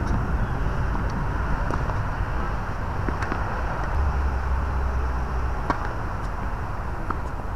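A steady low outdoor rumble with a few faint, sharp tennis-ball knocks; the clearest, about three-quarters of the way through, is a racket striking the ball on a serve.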